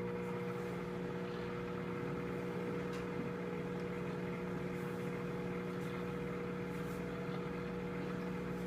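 Microwave oven running with a steady hum while it heats a bar of soap.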